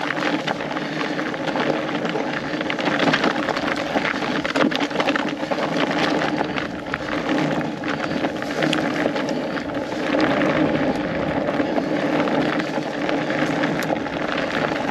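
Studded fat-bike tires rolling over a frozen, snow-dusted dirt trail: a steady crackling noise full of small clicks and rattles from the tires and the bike.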